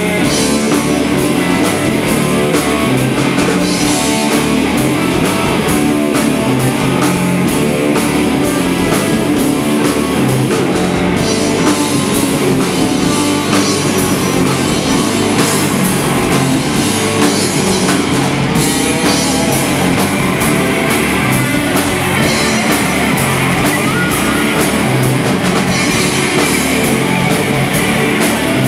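Live stoner rock band playing loud and steady: electric guitars over bass and a drum kit.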